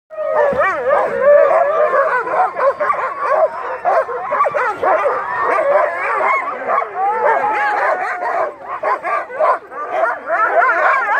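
A team of harnessed sled huskies barking, yelping and howling all at once in a continuous, overlapping din, the excited noise of sled dogs waiting to pull.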